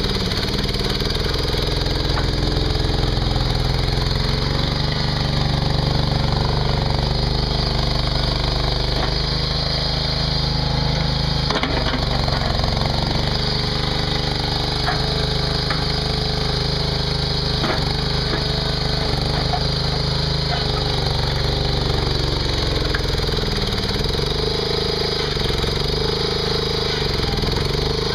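Mini skid steer's engine running steadily while it works dirt, with a few short knocks and some scraping mixed in.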